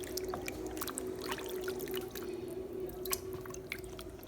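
Water splashing and dripping in a bowl as a raw chicken is washed by hand, with many small irregular splashes and drips over a faint steady hum.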